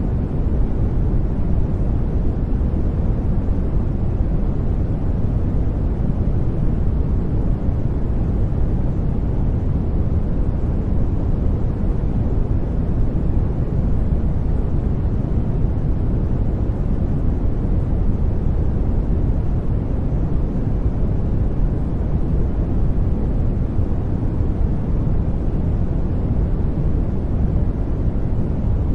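Steady synthetic noise of a white-noise sleep track, a deep, even rush with its weight in the bass and little treble, unchanging throughout.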